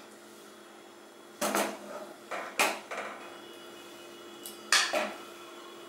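A wooden spatula knocks and scrapes against a nonstick pan and a ceramic bowl as thick chutney is spooned out. There are four or five short clatters, the loudest about three quarters of the way through.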